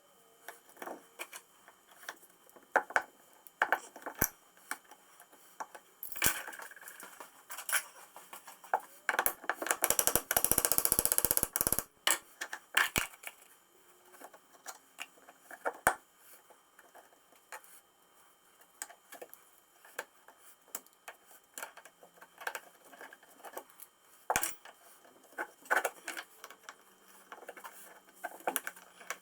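Small metal parts and hand tools clinking and knocking on a workbench as an old gear shifter is taken apart, with a few seconds of fast rattling near the middle.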